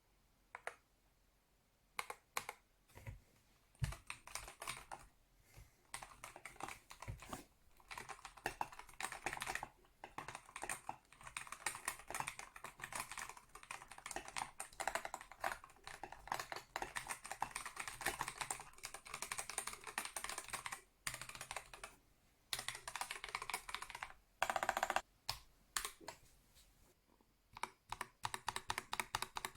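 Typing on an Akko World Tour Tokyo R2 3098 custom mechanical keyboard: a few scattered keystrokes at first, then fast runs of key clicks with a couple of short pauses.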